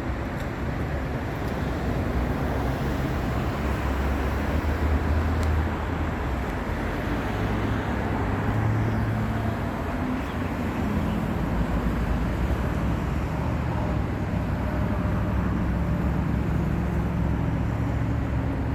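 Steady road traffic: vehicles passing on the highway, with tyre noise and engine rumble that swells and fades as they go by.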